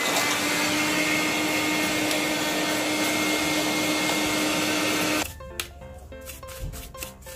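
Handheld electric duster running on a CPU cooler's heatsink to clear its dust: a loud rush of air with a steady hum and whine. It switches off abruptly about five seconds in, leaving background music with a beat.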